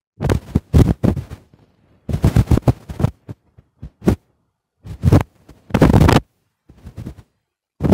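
Loud, distorted bursts of microphone handling noise from a phone being rubbed, knocked and covered: about seven irregular clusters of scraping thumps, each cut off into dead silence.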